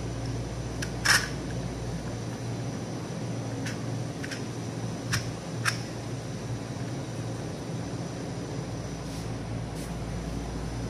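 Sharp plastic clicks and knocks from a plastic bike phone holder being handled, about eight in all, the loudest about a second in, over a steady low background hum.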